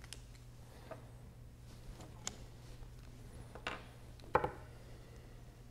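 A few light clicks and taps of small metal calculator digit wheels being handled and set down on a wooden workbench, the sharpest about four seconds in, over a low steady hum.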